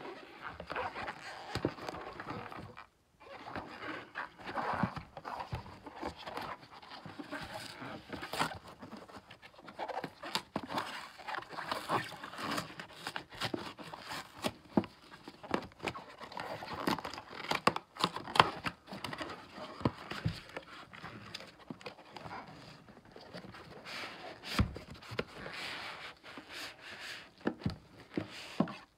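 Gloved hands handling and opening a paperboard retail box holding two plastic bottles: continuous rustling and scraping of cardboard and nitrile glove, with many sharp clicks and taps and the tearing of a glued flap.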